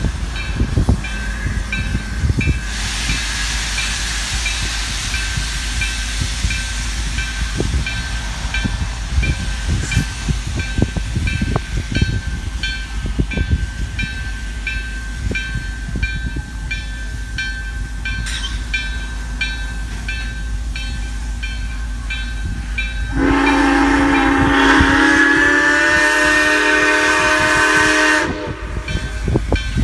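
Steam locomotive 4960, a 2-8-2 Mikado, moving slowly with its bell ringing steadily over a low rumble. About 23 seconds in, its steam whistle sounds one long blast of several tones at once, lasting about five seconds.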